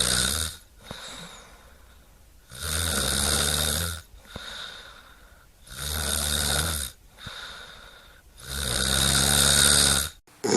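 A sleeper snoring: a loud, low buzzing snore about every three seconds, with a softer breath between snores. The sound cuts off abruptly near the end.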